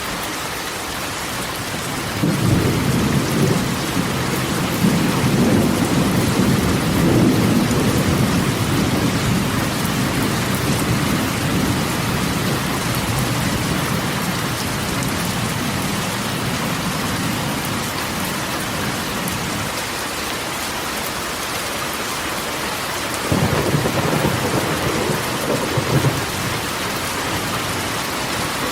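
Rain falling steadily on a corrugated metal roof. A long low rumble of thunder starts about two seconds in and dies away past the middle, and a second, shorter rumble comes near the end.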